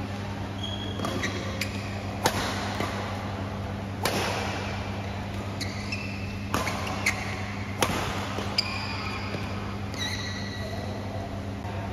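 Badminton rally in an indoor hall: rackets strike the shuttlecock with sharp hits a second or two apart, mixed with short squeaks of court shoes on the floor, over a steady low hum.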